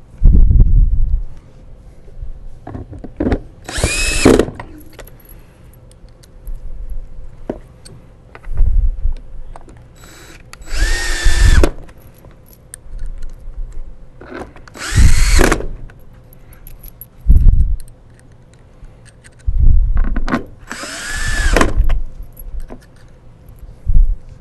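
Cordless drill driving long screws into the plastic head of a wet/dry vacuum, in four short whirring bursts of a second or two each, with handling knocks and clatter of screws between them.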